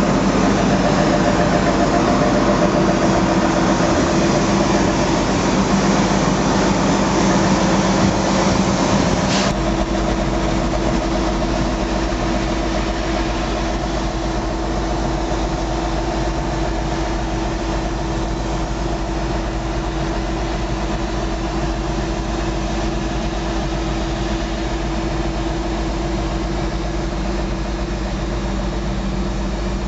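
Diesel engine of a Liebherr LRB125 piling rig running steadily, a continuous hum with a few held tones. About nine seconds in the sound turns abruptly duller, with less hiss and a heavier low hum, as it is heard from inside the cab.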